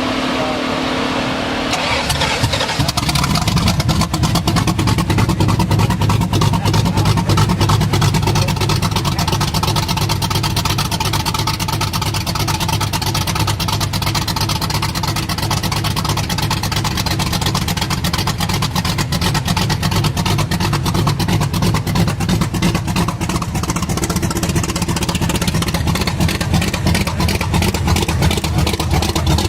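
Supercharged V8 in a Shelby Cobra replica firing up about two seconds in, then running through its side-pipe exhaust, a little louder for a few seconds after it catches and steady after that.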